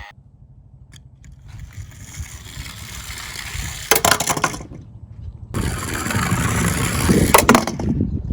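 Tomica die-cast toy police car rolling down a toy slope, its small wheels rumbling and growing louder, with a burst of clattering knocks about four seconds in and again near the end.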